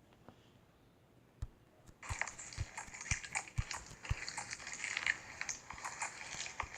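Slime being squeezed and poked by hand, quiet at first, then dense crackling and popping from about two seconds in.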